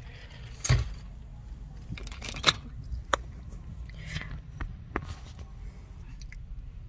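Steady low rumble, like a car's cabin, with about half a dozen sharp clicks and crackles of things being handled, the loudest about two and a half seconds in.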